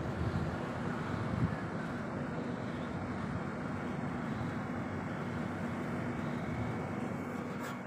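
Steady low mechanical drone, with wind buffeting the microphone in the first second and a half.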